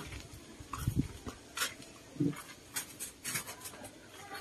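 Footsteps in rubber boots on a concrete floor, with scattered light knocks and rustles, and a short low sound about two seconds in.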